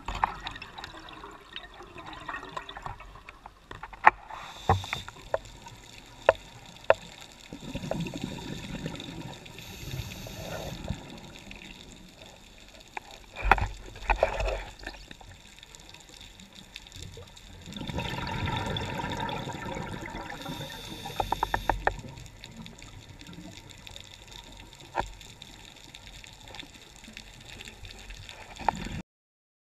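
Scuba diver's exhaled bubbles rushing out of the regulator in a few long bursts, recorded underwater, with sharp clicks scattered between them. The sound cuts off about a second before the end.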